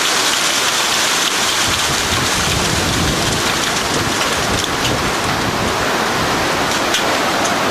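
Heavy storm rain pouring steadily onto surfaces. A low rumble swells from about two seconds in, and a few sharp ticks of striking drops or hailstones come near the end.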